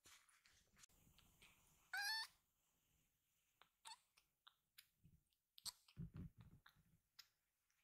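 A baby kitten gives one short, high, rising mew about two seconds in and a fainter one near four seconds. Small clicks and soft rustling thumps, louder a little after halfway, come from the kittens moving about on a fluffy mat.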